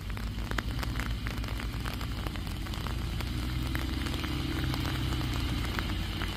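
Land Rover Discovery 300Tdi's 2.5-litre four-cylinder turbodiesel engine labouring up a slippery mud hill, its note rising around the middle and getting louder as it approaches. Crackling clicks are scattered throughout.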